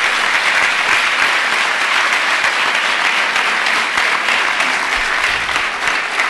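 Large audience applauding: loud, dense, steady clapping.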